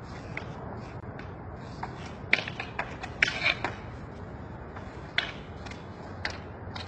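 A long wooden stick knocking and scraping on asphalt as a dog carries it, heard as irregular light clicks over a steady low background noise.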